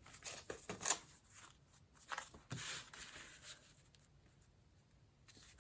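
Paper being trimmed to length by hand: a few short, faint crisp cuts and paper rustles, then quiet for the last two seconds.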